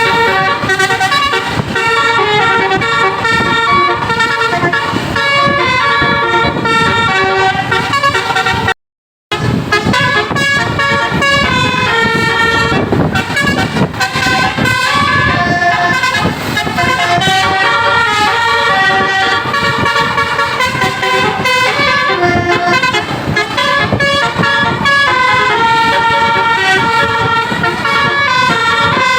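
Indonesian bus telolet basuri horn, a multi-trumpet musical air horn, playing melodies of steady tones that step from note to note, with a brief break about nine seconds in.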